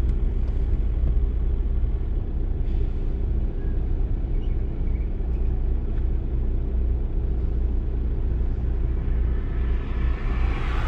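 Steady low rumble of road vehicles in traffic, with a broader rush of noise building near the end.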